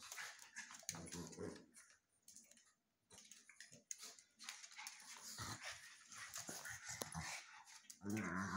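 Two pugs play-fighting, making low growling noises about a second in and a louder one near the end, with scuffling between.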